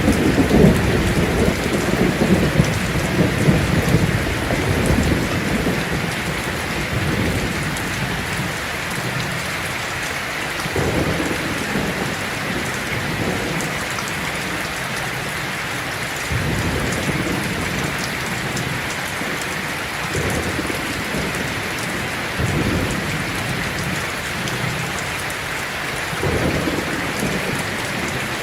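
Heavy rain falling on a tin roof, a steady hiss, with rolling thunder. The thunder is loudest in the first few seconds and fades, then comes back as several softer low rumbles.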